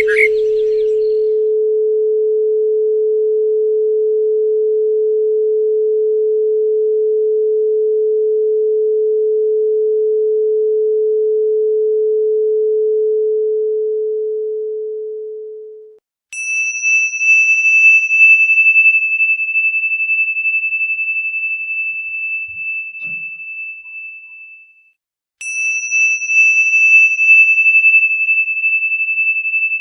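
A steady pure sine tone, near 432 Hz, holds and then fades out about sixteen seconds in. Then a high bell-like tone is struck and rings with a slight shimmer, decaying over several seconds. It is struck again a few seconds before the end.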